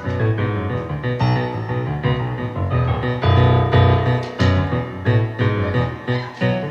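Live band music with piano to the fore: an instrumental passage with no singing, over a strong bass line.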